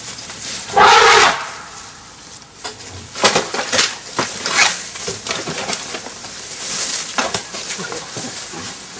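African elephant pushing through trees, branches cracking and snapping in a run of sharp clicks, with one short loud cry about a second in.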